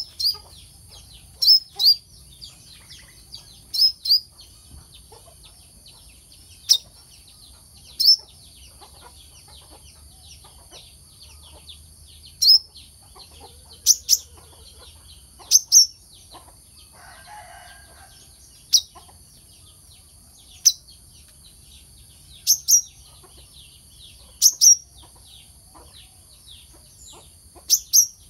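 Sunbird (kelicap mayang kelapa) calling: short, sharp, high-pitched notes, often in quick pairs, repeated every one to two seconds over a steady high hiss.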